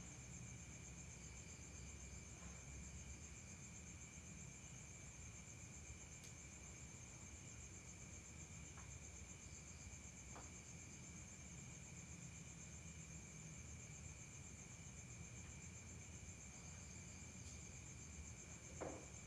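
Faint, steady chirring of crickets over a low background rumble, with a brief soft knock near the end.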